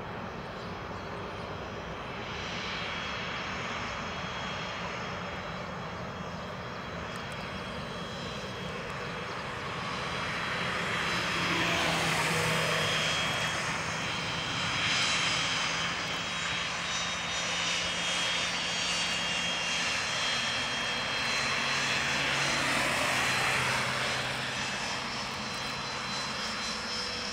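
Dassault Falcon 900EX business jet taxiing, its three Honeywell TFE731 turbofans running at low power with a steady hiss and a thin high whine. It grows louder from about ten seconds in as the jet comes nearer.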